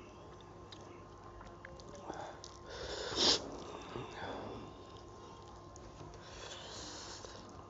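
A man sniffing and drawing hissing breaths while eating, with one sharp, loud sniff a little past three seconds in and softer breaths around it; the sniffling of someone eating very hot green chillies.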